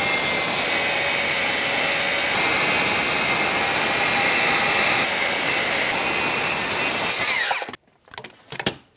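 Ridgid circular saw cutting through a wooden board in one long steady pass, with a high whine over the cutting noise. It spins down about seven seconds in, and a few light knocks follow near the end.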